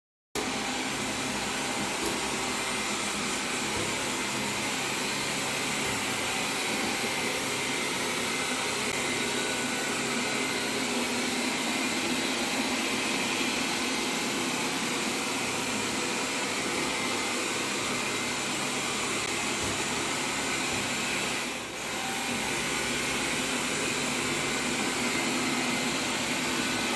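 Xiaomi Mi Robot Vacuum-Mop Pro robot vacuum running with a steady whirring hum from its suction fan and brushes, dipping briefly about 22 seconds in.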